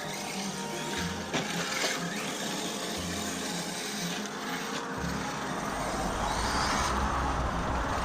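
Electric RC car's brushless motor whining as it drives, with tyre and drivetrain noise; the whine rises in pitch near the end, and a low rumble comes in about five seconds in.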